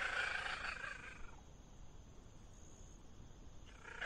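A cat calling twice: a rough, drawn-out call at the start that fades after about a second, and another beginning near the end.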